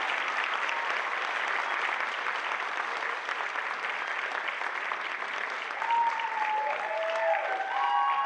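Audience applauding steadily, with a few voices calling out over the clapping from about six seconds in.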